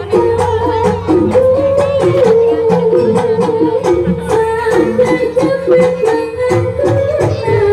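Live jaranan ensemble music: a reedy wind melody, typical of the slompret shawm, holds and wavers over a steady rhythm of drum strokes and low gong tones.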